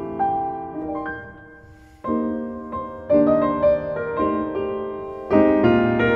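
Background piano music: a slow, gentle melody over chords, fading briefly about two seconds in, then picking up again and swelling near the end.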